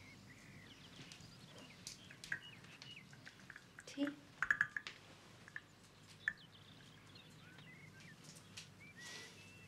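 Small birds chirping throughout, with a cluster of light clinks of china teacups and saucers about four to five seconds in.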